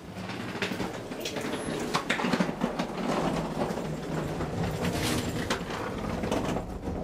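SJEC machine-room-less traction elevator in motion: a steady low hum of the car travelling, with scattered clicks and knocks through the ride.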